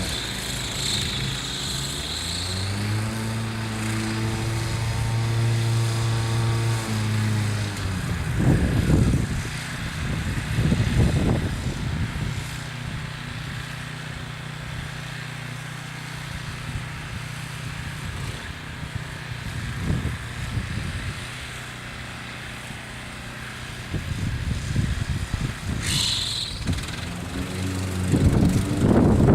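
Wolf-Garten ride-on mower's engine running, its speed shifting a few times in the first seven seconds and then holding steady. Loud, rough bursts come twice, about eight to twelve seconds in and again near the end, as the mower works over molehills.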